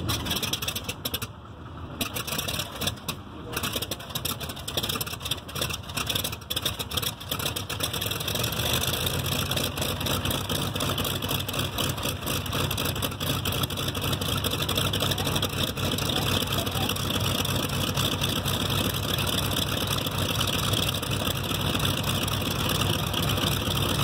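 Douglas A-1 Skyraider's Wright R-3350 18-cylinder radial engine on a cold start: for the first several seconds it fires unevenly, with sharp pops and dips. After about eight seconds it settles into a steady idle.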